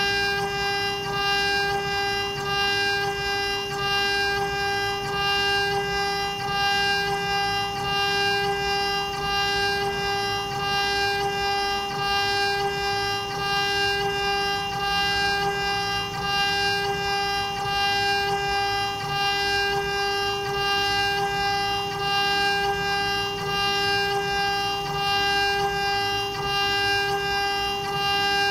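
StyleCNC STM1325 CNC router's spindle running at a steady high pitched whine while its bit carves a 3D relief into a wooden board. A low uneven rumble from the cutting runs underneath.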